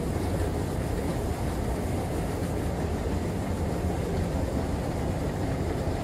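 Schindler 9700 escalator running, heard from on the moving steps: a steady mechanical rumble with a constant low hum.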